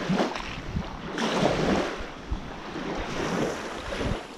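Small waves washing onto a sandy lakeshore, with gusts of wind on the microphone; the wash swells and eases.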